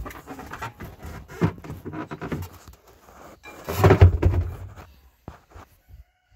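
Spare tire on its steel wheel being handled and set down into the trunk's spare-tire well, with rubbing and knocking and a heavy thud about four seconds in as it settles into place.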